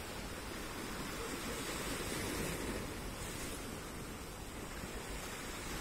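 Sea waves breaking and washing over shoreline rocks: a steady rush of surf.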